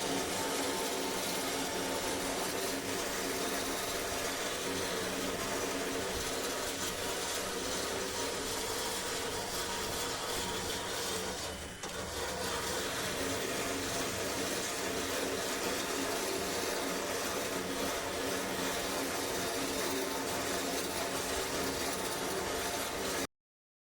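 A machine running steadily, a humming motor noise with a rushing hiss over it; it dips briefly about halfway through and cuts off abruptly near the end.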